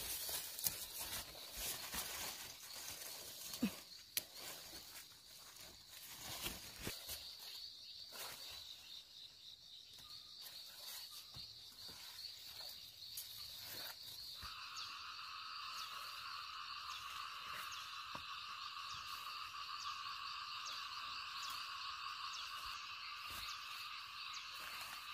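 Leaves and vines rustling, with a few sharp snaps as melons are picked by hand, over a steady high chirring of insects. About halfway through, a second, lower chirring chorus joins in and carries on steadily.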